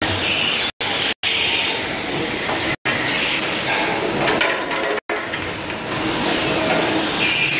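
Automatic rotary multi-spindle machine for brass check valve bodies running: a steady mix of motor, spindle and cutting noise with a hiss on top. The sound cuts out for an instant four times in the first five seconds.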